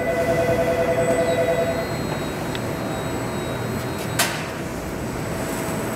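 A 2012 Switch LP SW low-profile turntable stretch wrapper running as its loaded turntable rotates. A steady machine whine over a low rumble is strongest for the first two seconds and then carries on fainter. There is a single click about four seconds in.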